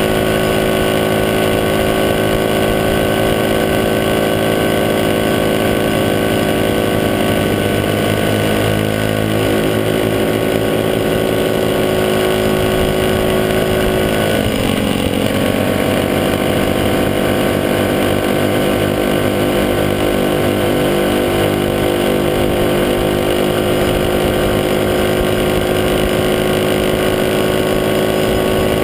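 Small motorcycle engine running steadily at cruising speed, heard from a camera mounted low on the bike, with a brief change in the engine note about halfway through.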